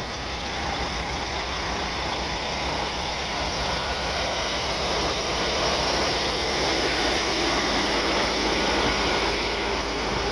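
Motorcycle riding at low speed: engine running under a steady rush of wind and road noise, growing slightly louder through the middle.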